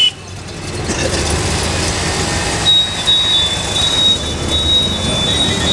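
Auto-rickshaw engine running with road and traffic noise, heard from inside the open cabin. The noise drops sharply at the start and builds back over about a second. From about three seconds in, a high beeping tone sounds in short pulses.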